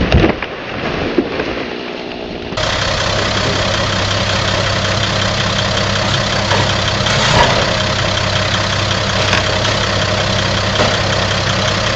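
A felled tree crashing to the ground: one loud thud right at the start, then a few smaller knocks. From about two and a half seconds in, a log truck's heavy diesel engine idles steadily.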